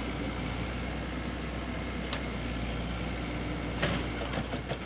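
An excavator's diesel engine running steadily with a low hum, with a few light clicks near the end.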